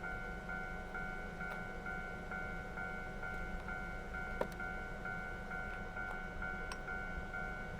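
Japanese railway level crossing's electronic warning bell ringing, a repeating chime about twice a second, warning that a train is approaching. A single sharp click sounds about four seconds in.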